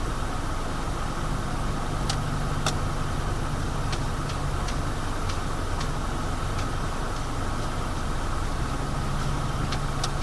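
Car engine idling, heard from inside the cabin as a steady low hum, with scattered light sharp ticks from about two seconds in.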